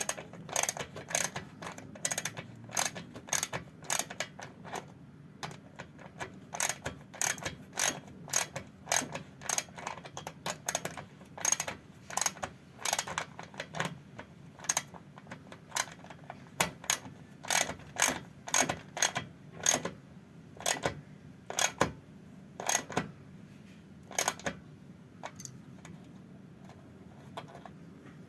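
Ratchet wrench clicking in a long series of sharp ticks, about two or three a second with some close pairs, as fasteners are worked on a BMW E36's auxiliary fan. The ticks thin out and stop near the end.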